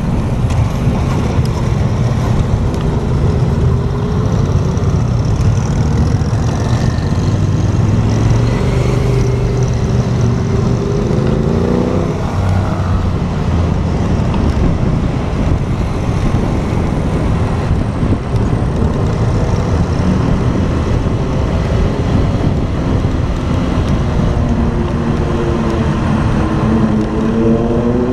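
Motorcycle riding on the road, heard through a helmet camera with heavy wind rush. The engine pulls up through its revs twice, about halfway through and again near the end.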